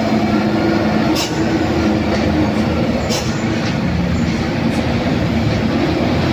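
Heavy diesel vehicle engine labouring up a steep climb, a steady low drone, with two short hisses about one and three seconds in.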